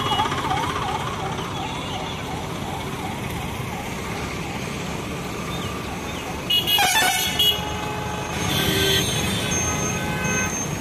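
Fast-cycling emergency-vehicle siren wailing up and down about three times a second, fading out over the first few seconds, over steady road traffic noise. About six and a half seconds in, a vehicle horn sounds in a few short blasts.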